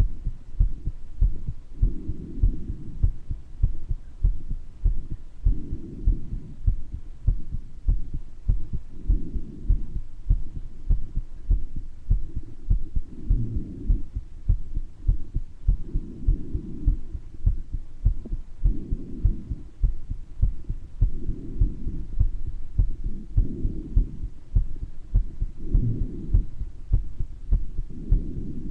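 A human heart beating with a murmur, each beat a low thud. Breath sounds rise and fall over it every three seconds or so.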